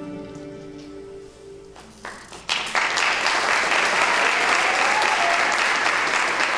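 The held closing notes of the dance music fade away, then an audience starts applauding about two and a half seconds in and keeps clapping steadily.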